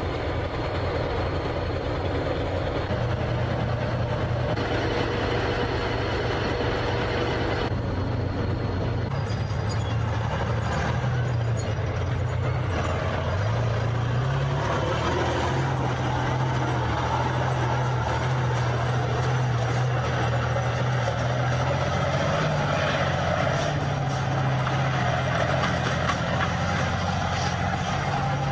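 Tank's diesel engine running steadily with the clatter of its tracks, its pitch rising about halfway through as it revs to pull away.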